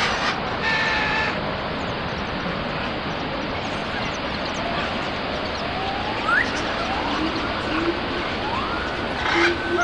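Small waterfall cascading down a rocky stream bed: a steady rush of water. A few short rising calls sound faintly over it in the second half.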